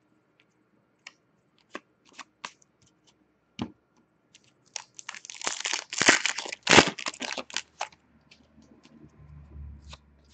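Foil trading-card pack wrapper crinkling and tearing for about three seconds near the middle, after a few light clicks and taps of cards being handled.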